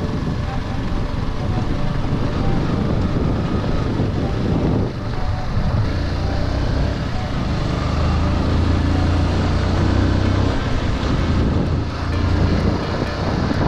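Yamaha R15 motorcycle's single-cylinder engine running at riding speed, heard from a helmet-mounted camera with wind rushing over the microphone. The engine note dips briefly about five seconds in.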